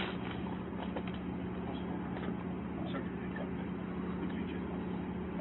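A steady low hum over a constant background noise, with a few faint clicks.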